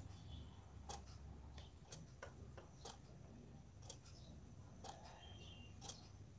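Near silence with faint, regular ticking about once a second, a few softer clicks in between, over a low steady hum.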